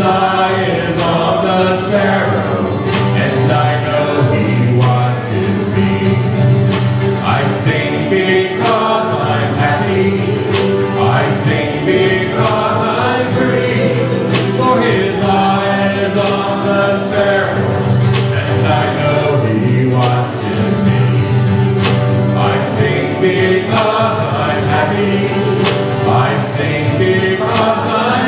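A group of voices singing a hymn together in harmony, continuous and steady throughout.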